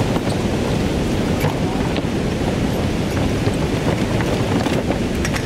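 Steady rushing of water from the river's rapids and waterfalls, with a few faint clicks over it.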